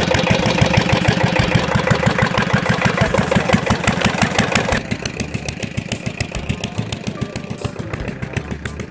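Peter diesel engine running with a steady chug of rapid, even firing beats. About halfway through the sound abruptly becomes quieter and duller, the beats continuing.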